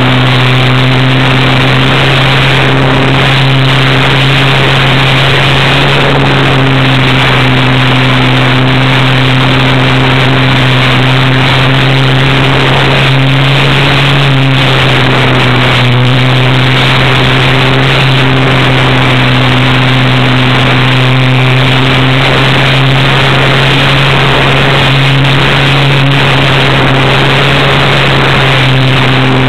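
Loud, steady drone of a HobbyZone Super Cub's electric motor and propeller in flight, heard through the onboard camera's microphone close to the motor, with the rush of air over the plane; the pitch holds nearly level, wavering slightly now and then.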